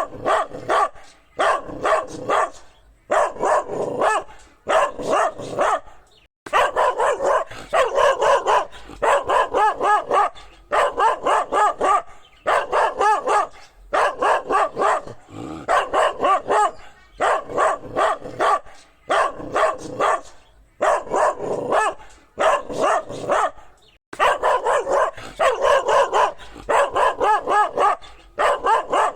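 Dog barking over and over in quick volleys of several barks, each volley followed by a short pause.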